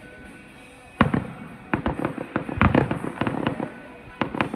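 Aerial fireworks exploding: a loud bang about a second in, then a rapid run of sharp crackling reports for about two seconds, and another bang near the end.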